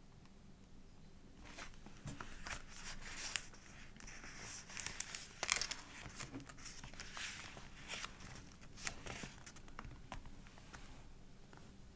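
Pages of a thick collaged paper journal being handled and turned, the paper and stuck-on scraps crinkling and rustling in irregular bursts with small clicks, busiest in the middle.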